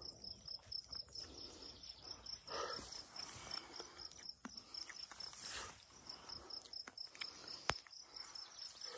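Insects chirping faintly in a steady, quick, even pulse, about six a second, with soft rustling and one sharp click near the end.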